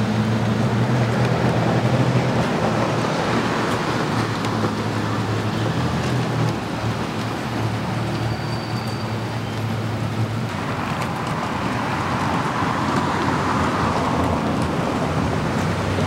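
Street traffic: a steady wash of road noise with a vehicle engine's low hum under it, the hum fading away about ten seconds in.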